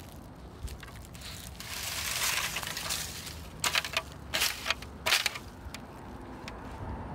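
Dry leaves rustling and crunching as a plastic Toyota wheel cover is pulled up out of the leaf litter and handled, with a burst of sharp crackles in the middle.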